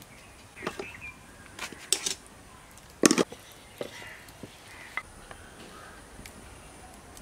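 Scattered sharp clacks and knocks of roti being made by hand: a wooden rolling pin on a wooden board and metal wire tongs, the loudest a single sharp knock about three seconds in.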